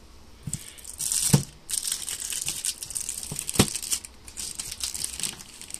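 Plastic shrink-wrap crinkling and tearing as it is pulled off a sealed deck of cards, with two sharp knocks, about a second in and midway.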